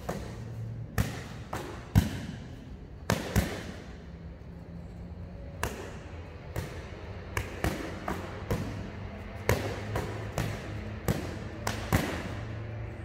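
Boxing gloves slapping into focus mitts and a kick checked against a padded shin guard in a kick-and-counter drill: a string of irregular sharp smacks, the loudest about two seconds in.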